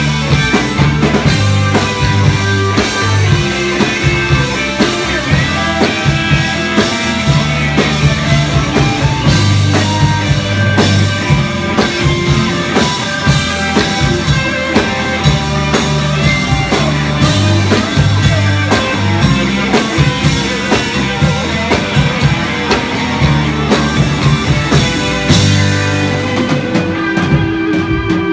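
Live psychedelic rock band playing an instrumental passage on electric guitars over a drum kit with a steady beat and a moving bass line. Near the end the drumming stops and one held note rings on.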